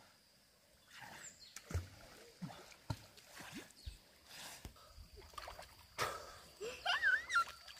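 Pond water splashing and sloshing in irregular bursts as people swim and wade. A brief high warbling sound comes near the end.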